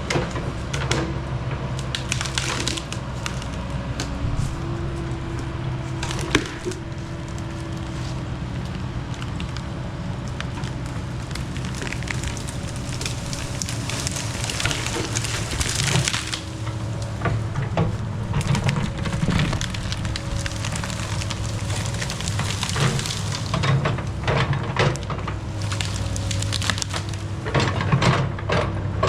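Mechmaxx SM-22 band sawmill running under load as its blade cuts through a cedar log: a steady engine hum with many short crackles and snaps of wood throughout.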